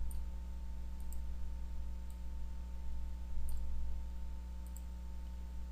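A few faint computer mouse clicks, spaced about a second apart, over a steady low electrical hum.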